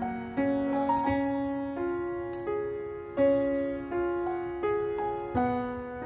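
Background piano music: a gentle melody of single notes, each struck and fading, about two a second.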